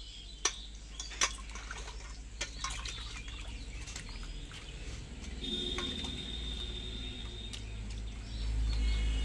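Water sloshing and splashing in a steel bowl as a whole fish is washed by hand, with a few sharp clicks of the fish or hands knocking the bowl in the first few seconds. A bird calls in the background about halfway through, and a low rumble rises near the end.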